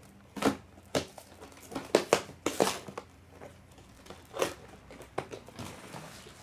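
Cardboard Lego set box being handled and opened: a string of sharp knocks and taps, with short tearing and crinkling of the cardboard.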